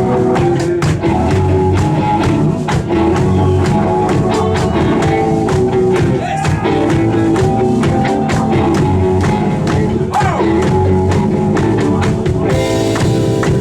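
Live rock band playing, with distorted guitars, bass and a drum kit keeping a steady beat.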